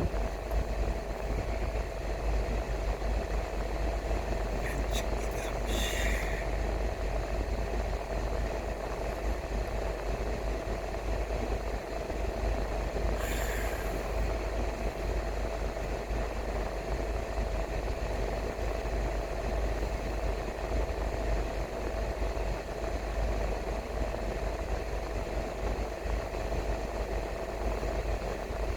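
A car driving on the road: steady engine and road-noise rumble with a faint steady whine, and two brief higher-pitched sounds partway through.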